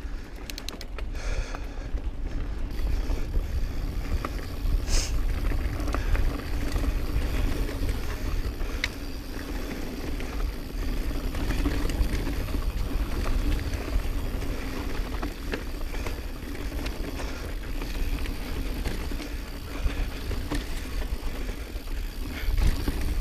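Intense Recluse mountain bike rolling down a dirt singletrack: a steady rumble of wind on the camera's microphone and tyres on the dirt, with scattered sharp clicks and rattles from the bike going over roots and rocks.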